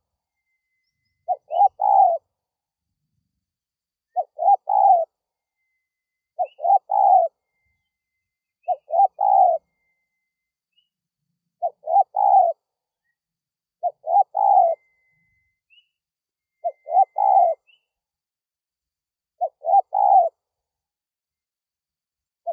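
Spotted dove cooing its three-note call, two short notes and a longer last one, repeated nine times every two to three seconds.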